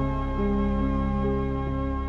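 Instrumental background music: a slow melody of held notes over a steady low drone.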